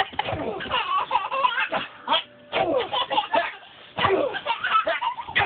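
A young child laughing and squealing in bursts during rough play, with a couple of short pauses.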